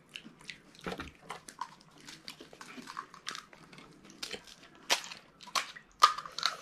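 Crisp fried puri shells being cracked open and bitten, a string of short sharp crunches and clicks with wet mouth sounds, the loudest crunch near the end.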